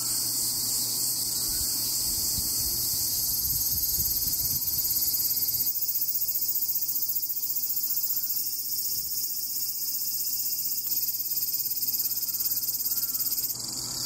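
Cicada singing in the trees: a dense, steady, high-pitched buzz.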